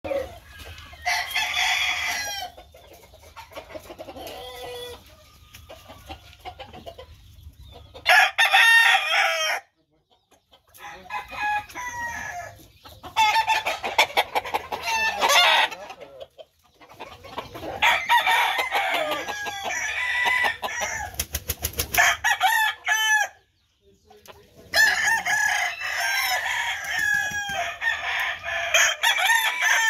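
Roosters crowing over and over, in a run of separate bouts with short breaks between them.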